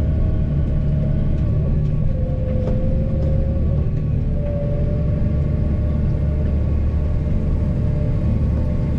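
Massey Ferguson 7618 tractor engine running steadily under load while pulling a wheeled rake, heard from inside the cab, with a faint steady whine above the drone.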